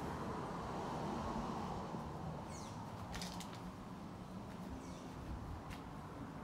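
Nissan 200SX S14 idling, heard at its exhaust tip as a low, steady rumble, with a couple of short bird chirps about two and a half and five seconds in and a few light clicks around three seconds.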